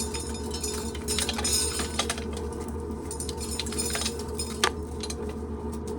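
Corn sheller running with a steady hum, and dry shelled kernels clinking and rattling irregularly against metal, with one sharper click near the end.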